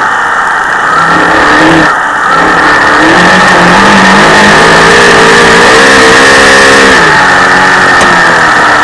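A dirt Modified race car's V8 engine at racing speed, loud and close as heard from on board the car. There is a short lift about two seconds in. The pitch then climbs steadily for several seconds under full throttle and drops sharply near the end as the throttle comes off for the turn.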